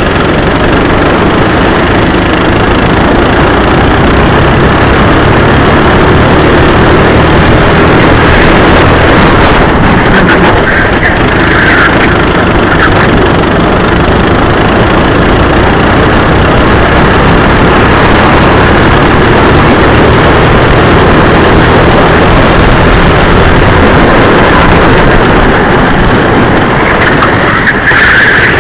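Onboard sound of a Sodi RT8 rental kart's engine running hard at racing speed, loud and continuous, mixed with a dense rush of wind noise over the kart-mounted camera's microphone.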